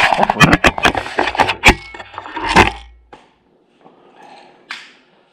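Smog-system parts being pulled off a Honda XR650L: a quick run of sharp clicks, cracks, knocks and scrapes for about three seconds. Then it goes much quieter, with one more click near the end.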